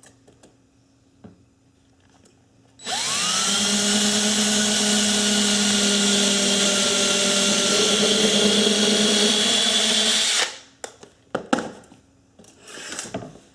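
Cordless DeWalt 20V drill with a 5/64-inch bit boring a pilot hole for a finish nail through wooden stair nosing. The motor spins up quickly about three seconds in, runs steadily for about seven seconds, then stops, followed by a few light knocks.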